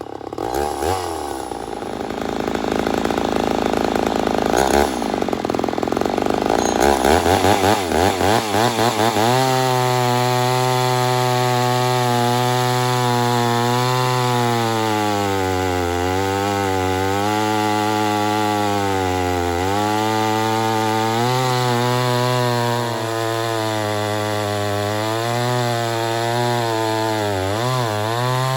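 Ported Poulan 245A two-stroke chainsaw with a 28-inch bar cutting big hardwood on an unsharpened chain. The engine revs unevenly for the first several seconds, then settles into a steady working note in the cut, its pitch dipping and recovering as it pulls down under load.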